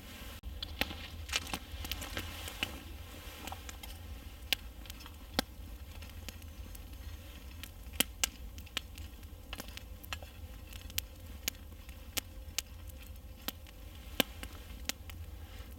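Wood campfire crackling, with sharp irregular pops a few times a second over a low steady rumble.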